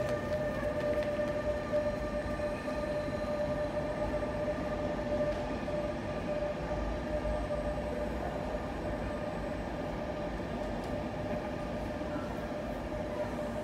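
NS intercity train's yellow-and-blue coaches rolling slowly past along the platform, a steady rumble with a steady whine over it.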